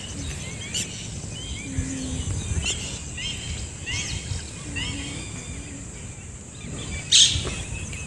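Wild birds chirping and calling: many short, quick chirps repeated throughout, over a steady low rumble. A brief rush of noise, the loudest sound, comes about seven seconds in.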